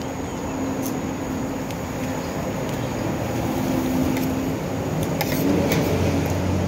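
Steady motor-vehicle rumble with a low hum and a few faint clicks, growing a little louder after about four seconds in.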